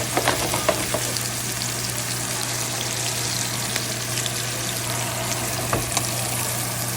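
Food sizzling in oil in a frying pan: a steady dense hiss, with a few sharp clicks near the start and just before six seconds in, over a steady low hum.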